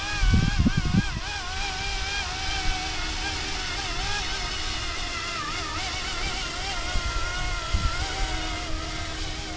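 YUXIANG F09-S electric RC scale helicopter whining in flight, its pitch wavering up and down as the motor speed changes. Wind buffets the microphone in the first second.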